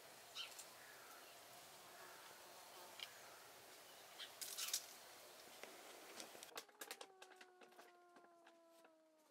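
Faint outdoor ambience with a few soft clicks, then about two-thirds of the way through a flying insect buzzing steadily, its pitch sinking slowly.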